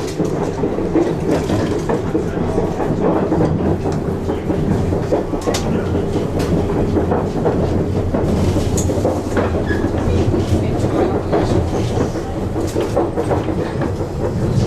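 Toyama Chiho Railway Alps Express train running along the line, heard from inside the passenger car: a steady rumble of the wheels and running gear with intermittent clicks of the wheels over the rails.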